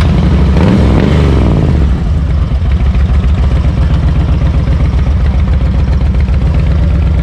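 Motorcycle engine revving up about a second in, then running steadily with a rapid low pulse.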